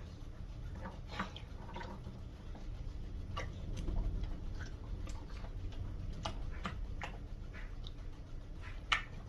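Cane Corso puppy at her water bowl, lapping water and chewing wet kibble: irregular small wet clicks, with a sharper click about nine seconds in, over a low steady hum.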